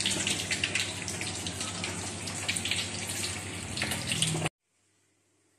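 Water running from a kitchen tap into a sink: a steady rushing hiss over a low hum, cut off abruptly about four and a half seconds in, then near silence.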